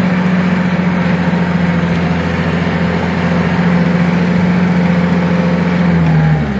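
Tractor engine running steadily while pulling a rear grader blade through dry pond dirt. Its note sags and drops near the end as the throttle comes back.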